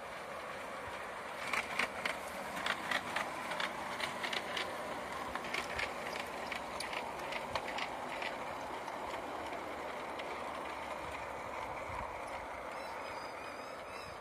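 Garden-scale model freight train rolling along its track: the wheels click irregularly over the rail joints for several seconds, over a steady rolling sound.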